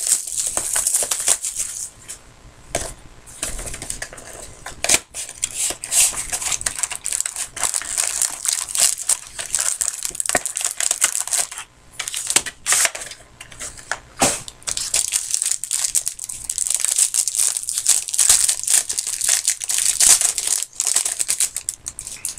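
A trading-card box and its wrapping being torn open and crumpled, an irregular crinkling and crackling with many sharp rustles.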